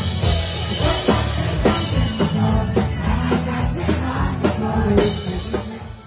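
Live band playing loud rock-style music with a steady drum beat, bass and singing, heard from among a dense crowd.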